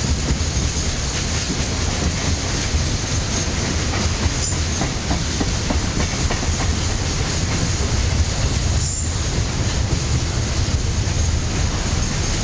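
Freight wagons (boxcars, then open-top gondolas) rolling past close by: a steady rumble of steel wheels on rail with clicks over the rail joints. A short high wheel squeal comes twice, about a third of the way in and again about three quarters in.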